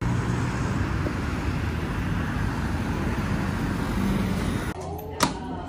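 City road traffic: cars driving past with steady road noise. About five seconds in, the noise drops and there is a single sharp click.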